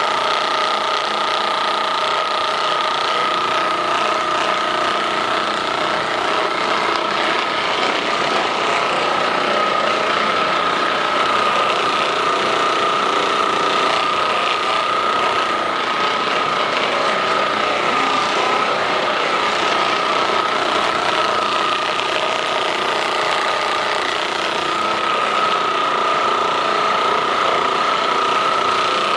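Handheld percussion massage gun running steadily, with a constant high motor whine.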